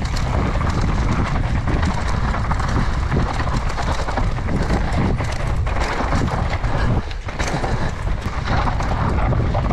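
Mountain bike descending fast on a steep, dusty dirt trail: tyres grinding over dirt and stones, with frequent small knocks and rattles from the bike. Heavy wind buffets the microphone.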